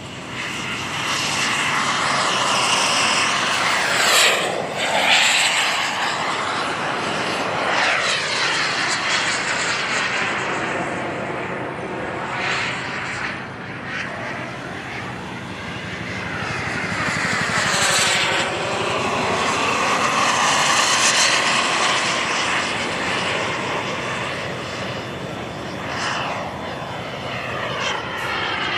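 Radio-controlled model jet flying repeated passes, its engine noise swelling and fading with each flyby, loudest a few seconds in and again past the middle.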